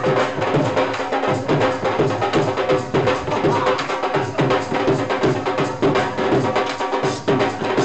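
Live dhol drums beaten in a steady bhangra rhythm, with a chimta's metal jingles keeping time.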